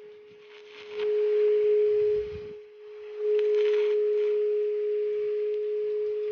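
Stick-welding arc on thin steel square tubing, struck twice: a crackling hiss about a second in that stops halfway through, then a longer one from about three seconds in, each starting with a sharp snap. A steady high whine runs underneath and grows louder while the arc burns.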